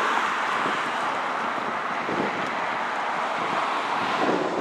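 A fire engine pulling away down the street: a steady rushing of engine and road noise, with no siren sounding.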